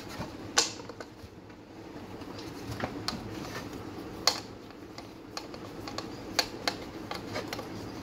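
Scattered light metallic clicks and taps as a T-handle Allen key turns the screws holding an antenna bracket to a metal housing, over a faint steady hum.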